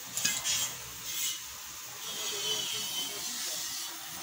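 Gas welding torch hissing steadily as it works on a scooter's engine casing, with a few short scraping rasps in the first second or so.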